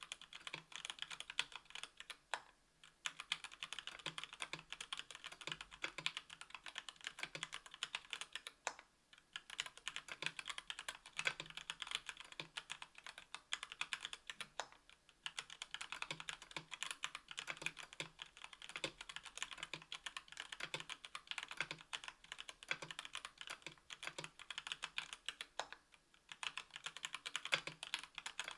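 Fast, steady typing on a mechanical keyboard with stock Gateron Red Ink linear switches (45 g) in a KBDfans Tofu 60% aluminium case with an aluminium plate and GMK keycaps: a dense run of key clacks with no switch click, broken by a few short pauses.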